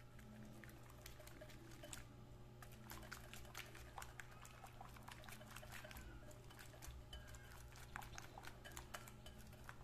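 Silicone whisk beating egg yolks in a glass bowl: faint, rapid, irregular clicking and wet stirring of the whisk against the glass, over a steady low hum.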